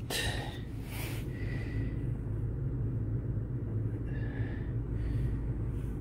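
Steady low hum inside a vehicle cabin, with brief handling noises in the first second or so.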